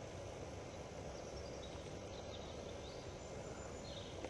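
Quiet woodland ambience: a steady background hiss with a few faint, short, high chirps scattered through it.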